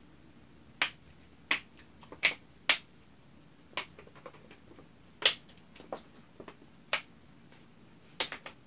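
A capped plastic bottle of thickening glue-and-detergent slime mixture being shaken by hand, giving sharp, irregular clicks and slaps, about one every second, as the bottle and its contents knock with each shake.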